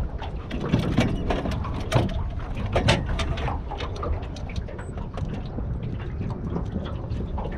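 Irregular knocks, taps and clatter of fishing gear being handled in an aluminium dinghy, thickest in the first three seconds, over a steady low rumble.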